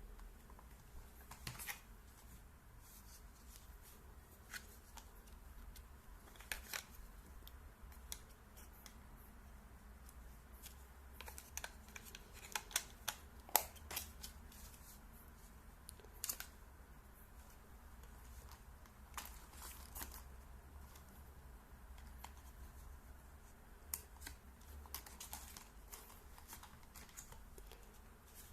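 Faint, scattered clicks and light rustling of small objects being handled, over a low steady hum.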